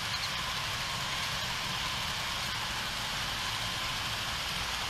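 HO-scale model freight train of gondolas, hoppers and tank cars rolling past on the track: a steady rolling hiss of many small wheels on the rails over a low rumble.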